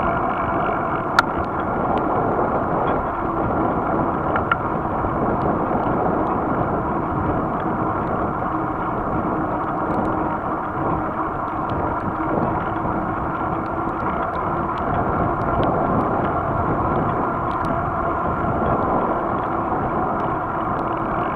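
Bicycle riding along an asphalt road, heard from the bike: steady tyre and wind noise. There is a sharp click about a second in and a smaller one a few seconds later.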